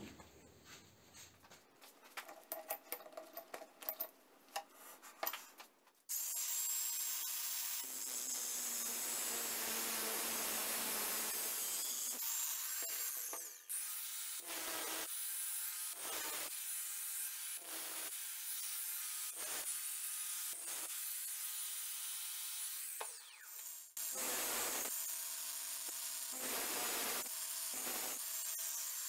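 Angle grinder cutting teeth into the end of a steel CO2 cartridge clamped in a vise. It starts about six seconds in after a few light clicks of handling, runs with a high steady whine, and from the middle on cuts in short passes about once a second.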